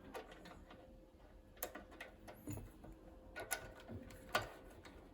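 A few separate light metallic clicks and taps, the loudest near the end, as the washer and eye bolt of a Pallmann Cobra floor sander's top tension roller are handled and fitted back onto the shaft.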